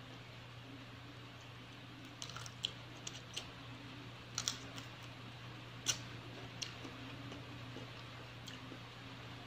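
Eating sounds at close range: a scattering of short clicks and smacks from chewing and handling food with the fingers, over a steady low hum.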